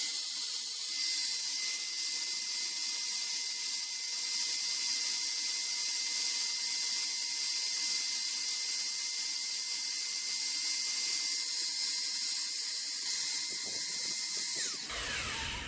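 Small motor-driven injection pump running steadily with a high whir and hiss, forcing termiticide through a plastic pipe into a hole drilled in concrete stairs. It winds down and stops near the end.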